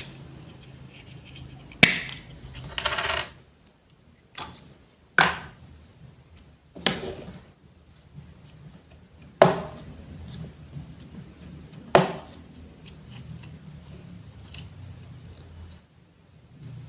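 Wooden toy fruits and vegetables being cut and handled: a series of about six sharp clacks and knocks spread out over several seconds, with a short rasp just after the first.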